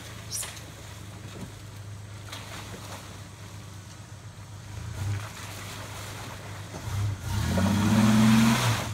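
Pickup truck engine running at low revs as the truck crawls through mud, then revving up near the end, the loudest part, with a rush of noise from the tyres in the mud.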